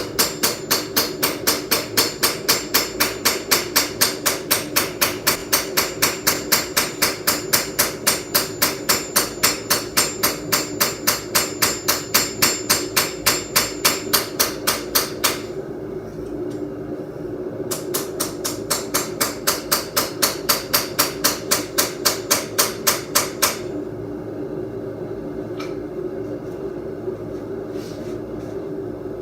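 Hand hammer striking a hot Viking seax blade on an anvil in quick, even blows, about three a second, straightening a bow out of the steel before quenching. The hammering pauses about fifteen seconds in, resumes after a couple of seconds, and stops about two-thirds of the way through, leaving a steady low hum.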